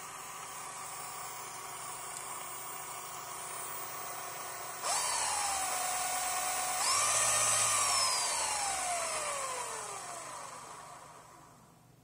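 MY1018 brushed electric motor driving the bicycle's chain, running with a whistle-like whine and no bearing noise on its new, grease-packed bearings. About five seconds in it speeds up with a sudden jump in pitch and loudness, steps up again about two seconds later, then winds down with a steadily falling whine that fades out near the end.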